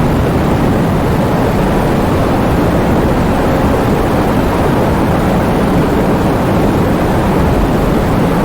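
Heavy rain falling in strong wind: a loud, steady, dense rush of noise, deepest in the low range, with no separate drops or gusts standing out.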